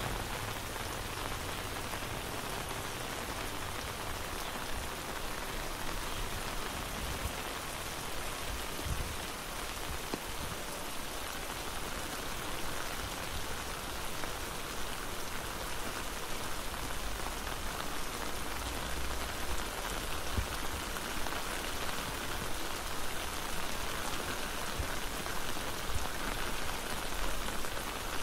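Steady rain falling, an even, dense patter of drops with no break.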